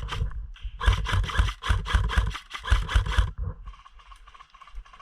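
A quick run of rustling, scraping knocks with heavy low thuds, starting about a second in and stopping after about two and a half seconds.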